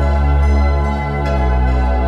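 Background music: sustained chords over a deep bass, shifting to a new chord a little past halfway.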